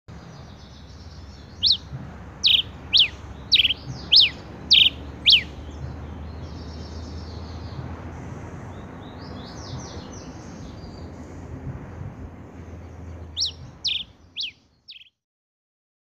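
Male red pileated finch (tico-tico-rei) calling: a run of sharp, downward-slurred chirps about two a second, then fainter twittering, then four more chirps near the end. A steady low rumble lies underneath.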